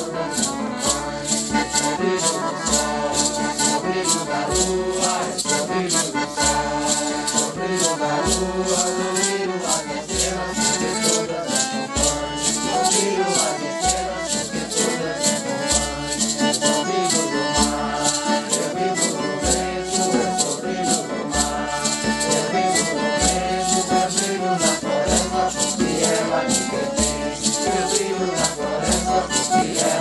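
Santo Daime hymn music: voices singing over maracas shaken in a steady beat.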